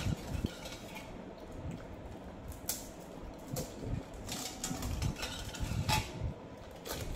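Scattered short clinks and knocks of hands and a spoon against steel pots, several clicks a second or two apart, with low mouth sounds of two people chewing pani puri.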